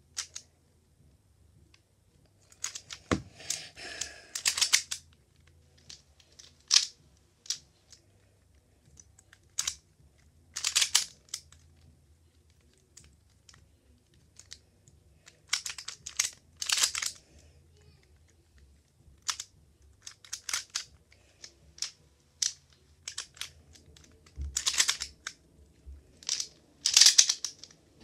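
Plastic pyraminx puzzle being turned by hand during a speed-solve: its pieces click and rasp in irregular bursts of quick turns, with short pauses between, and a single knock about three seconds in.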